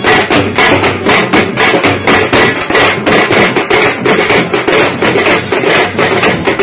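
Loud music driven by fast, steady drumbeats, about four strikes a second.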